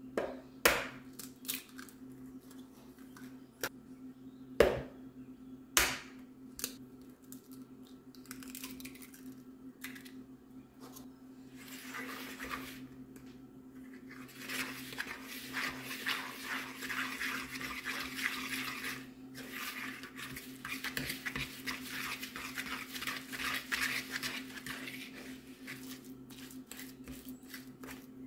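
A few sharp knocks as two eggs are cracked into a mixing bowl, then a fork beating them into a dry, crumbly flour mixture, with quick scraping and clinking against the bowl in two long stretches.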